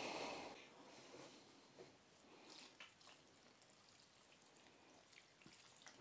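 Near silence: room tone with a faint hiss in the first half-second and a few faint, soft handling clicks.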